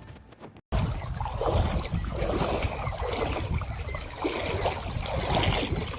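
Background music cuts off under a second in, then a steady rumbling rush of wind on the microphone over moving floodwater.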